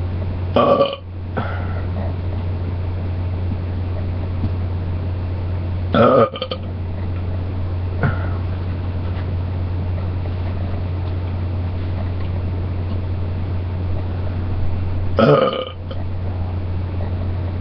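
Three short belches, one about a second in, one around six seconds in and one near the end, over a steady low hum.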